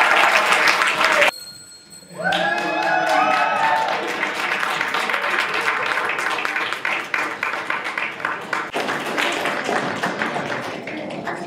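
Audience applauding with cheers and whoops. The sound cuts out suddenly about a second in, then the clapping picks back up and slowly dies down.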